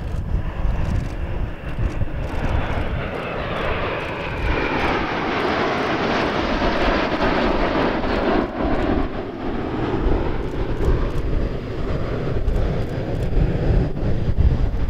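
A formation of four BAE Hawk Mk.51A jet trainers flying past overhead, their Rolls-Royce Turbomeca Adour turbofans rising to a loud peak about midway with a sweeping, phasing noise as they go over, then fading as they pull away.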